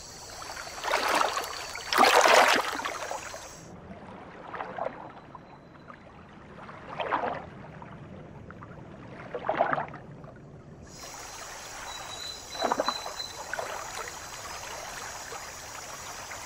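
Water splashing in separate bursts, about five splashes a few seconds apart, the loudest near the start, over a low steady wash of moving water. These are the splashes of fish chasing and diving terns striking the surface of shallow water.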